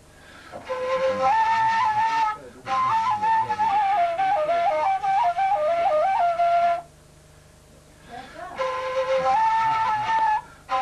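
Kaval, the Turkish end-blown wooden flute, playing a türkü (folk) melody in phrases with quick ornamental turns between notes. The phrases are broken by short pauses for breath, the longest a silence of nearly two seconds about seven seconds in.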